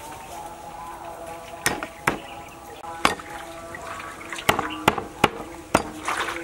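Cleaver knocking on a wooden chopping board, about seven sharp strokes at uneven intervals, with brief splashes of water from vegetables being washed in a metal basin. Soft background music with held tones runs underneath.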